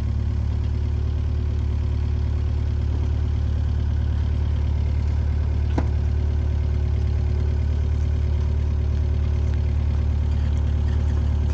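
Heavy machine engine, most likely a mini excavator's, running steadily at idle with a low, even drone. A single light click sounds about six seconds in.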